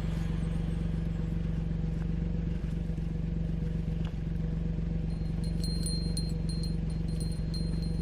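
Old-model Suzuki Jimny's engine idling steadily with an even, fast pulse. From about halfway through, light high-pitched clinks come and go over it.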